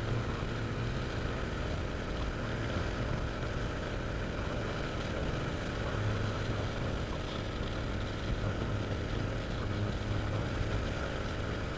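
Steady wind noise buffeting the microphone, with a low vehicle engine drone underneath, while on the move.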